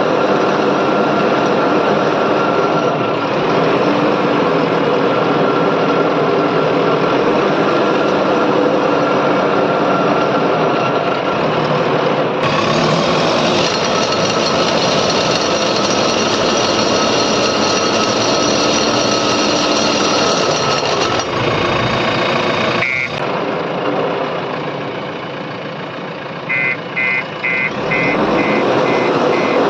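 JCB 3DX backhoe loader's diesel engine running steadily under load. A reversing alarm beeps rapidly over it near the end.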